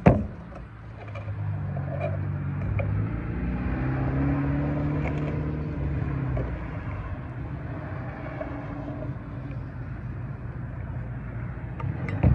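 Hot water pouring from an insulated steel bottle into a foil freeze-dried meal pouch, its tone rising over the first few seconds as the pouch fills. A sharp knock comes just as the pour begins and another near the end.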